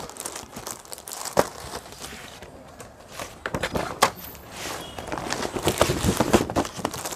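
Clear plastic packaging crinkling as boxed sarees are handled, with scattered clicks and a sharp knock about a second in. The crackle grows denser near the end.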